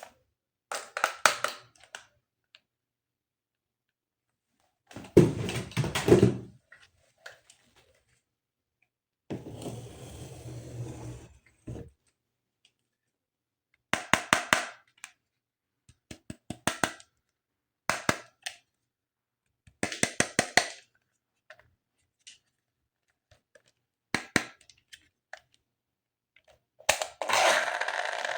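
Plastic toy pieces and packaging being handled: short bursts of clicks and taps separated by silent gaps, a duller thud about five seconds in, and a longer stretch of rustling near the end.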